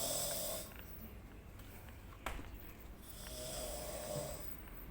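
A sleeping person snoring, really loud: one snore trailing off at the start and another about three seconds in, with a single sharp click between them.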